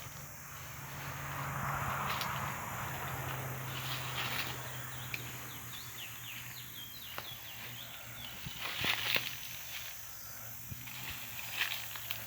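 Wild curiós (chestnut-bellied seed finches) singing at a distance, two males countersinging from different spots, with short quick falling notes. A steady low hum is under the first half.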